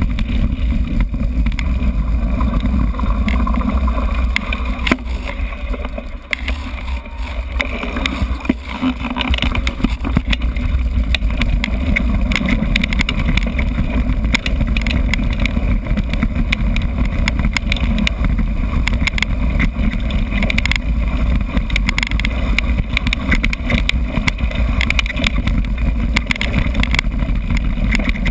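Wind buffeting the microphone of a GoPro Hero camera carried on a mountain bike at speed, a heavy steady rumble, mixed with rattles and knocks from the bike going over a rough dirt trail. The rumble eases for a few seconds about a quarter of the way in, then comes back.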